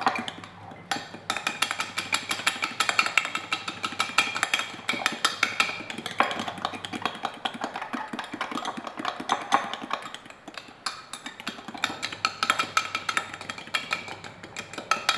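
A utensil beating egg, butter and almond flour batter in a bowl, clicking rapidly against the bowl several times a second, with a short letup about ten seconds in.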